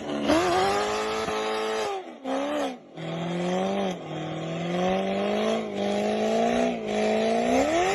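A car engine revving hard. Its note rises, drops sharply a few times as if shifting, then climbs again near the end.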